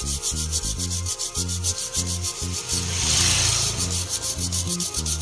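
A brush scrubbed rapidly back and forth over a mobile phone's circuit board, cleaning it: a quick run of scratchy rubbing strokes that swells loudest about three seconds in.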